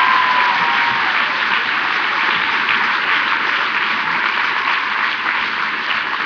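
Large audience applauding, a dense, steady clapping that eases off slightly toward the end.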